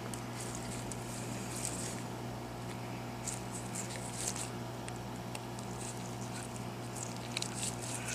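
A hot air gun runs with a steady hum. Over it come short, scratchy scraping sounds from a small screwdriver working at the iPhone 6's stubborn tiny side panel screws.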